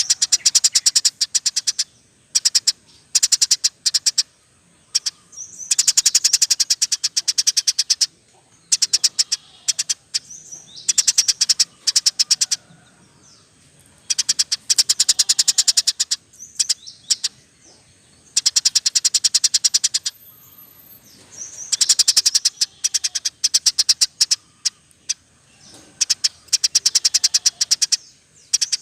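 Small cage birds chirping and trilling in rapid high bursts of one to two seconds with short pauses between, from a bird-song tutoring recording that mixes canary, lovebird and Eurasian tree sparrow.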